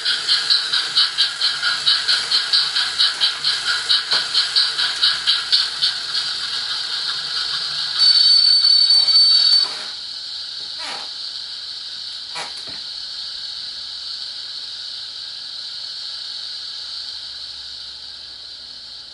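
Digital steam sound decoder playing through a small model-locomotive loudspeaker: rhythmic exhaust chuffs that slow and merge into a steady steam hiss about six seconds in, a whistle blast of under two seconds about eight seconds in, then continuing hiss with two short falling squeaks, fading near the end.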